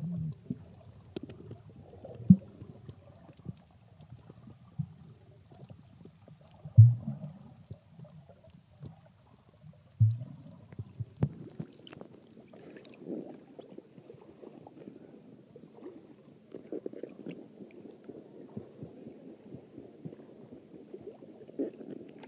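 Muffled underwater sound picked up by a camera held below the sea surface, with a few loud dull thumps. About eleven seconds in the camera comes up at the surface and a steady low sloshing of water takes over.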